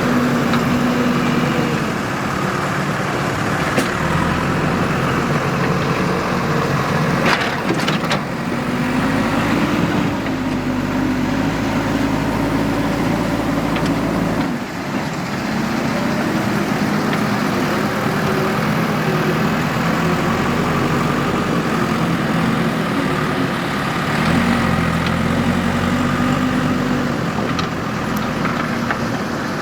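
Diesel engine of a JCB 3DX backhoe loader working, its revs rising and falling several times under load. There is a brief clatter of knocks about seven seconds in.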